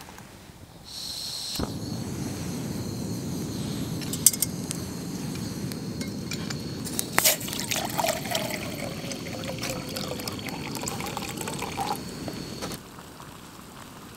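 Liquid poured in a steady stream for about ten seconds, with a couple of sharp clinks along the way; it starts over a second in and stops near the end.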